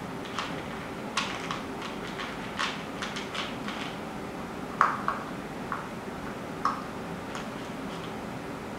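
Bedlington Terrier puppy eating dry puppy kibble from a bowl: irregular crunches and sharp clicks of kibble and teeth against the dish, the loudest about five seconds in.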